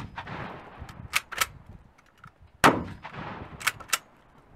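M26 12-gauge shotgun: a single shot about two and a half seconds in, echoing away. Before and after it the bolt is worked back and forward, giving two sharp metallic clacks a quarter second apart each time.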